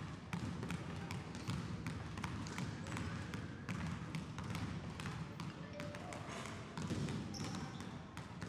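Basketball dribbled on a hardwood gym floor: a quick, even run of bounces that carries on steadily as the player works through a cone drill.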